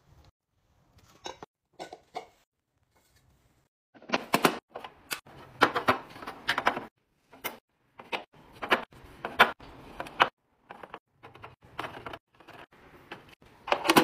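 Brown eggs being set one by one into a clear plastic egg holder, their shells clicking and knocking against the plastic cups. A few light taps come first, then about four seconds in a quick run of sharp clicks sets in, several a second.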